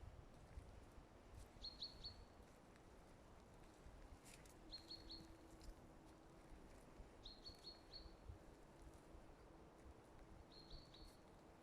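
A small songbird repeating a short call of three quick high notes, four times, about every two to three seconds, faint over quiet outdoor background noise. A faint steady low hum comes in about halfway through.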